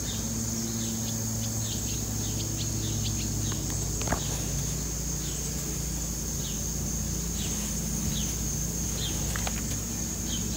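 Outdoor summer ambience: a steady high-pitched insect drone with short, repeated bird chirps, over a low steady hum.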